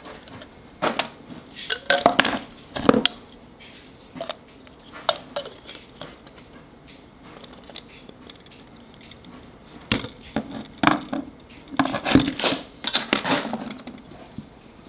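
Small metal parts and tools being handled, giving irregular clinks and knocks. The handling comes in two busy spells with a quieter stretch between.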